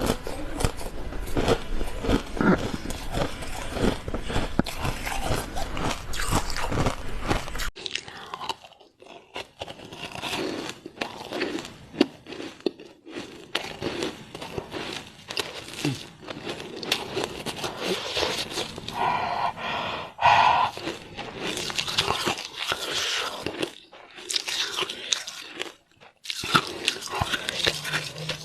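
Frozen matcha ice being bitten and crunched close to the microphone. A dense run of crisp crunches fills the first several seconds; then, after an abrupt change, come slower, separate bites and chewing crunches.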